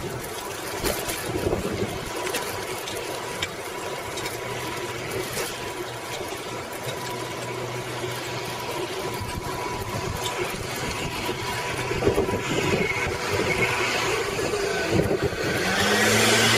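Wind rushing over a bike-mounted microphone while a bicycle rolls along a paved path, with small clicks and rattles from the tyres and frame. Near the end a steady low mechanical hum comes in and grows louder.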